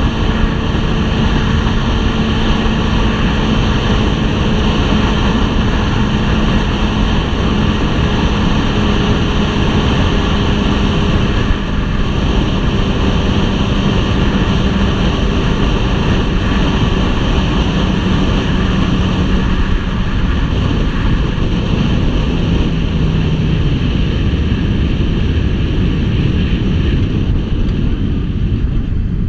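A 2003 Yamaha R6's inline-four engine runs at a steady cruise with heavy wind rushing over the helmet-cam microphone. About three-quarters of the way through, the engine note drops in pitch and fades into the wind noise.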